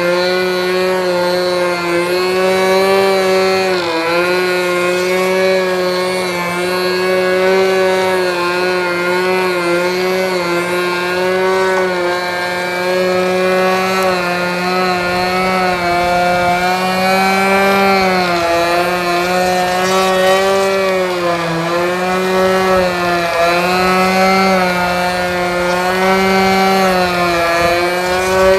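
Radio-controlled aerobatic model airplane's motor and propeller running hard while the plane hovers nose-up on its propeller. The pitch dips and climbs again and again as the throttle is worked to hold the hover.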